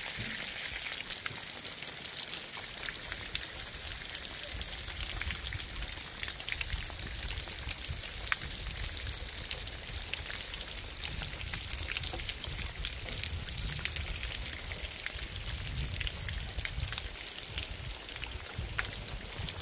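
Heavy rain falling, with many drops ticking and rainwater pouring off the edge of a flat mud-and-timber roof.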